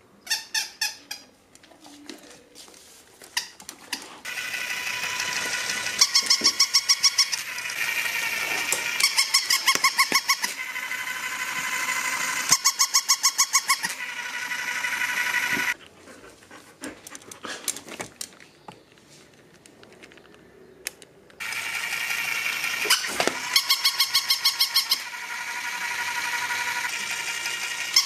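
Battery-powered walking toy puppy: its small motor whirs steadily as it walks, broken by bursts of rapid, squeaky electronic yaps. The motor stops for several seconds midway, then starts again with more yapping bursts.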